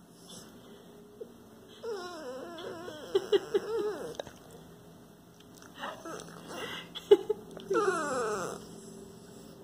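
Small curly-coated dog whining over a piece of watermelon in a series of wavering, pitch-wobbling whines, starting about two seconds in and coming again in shorter bouts, ending with a falling whine near the end.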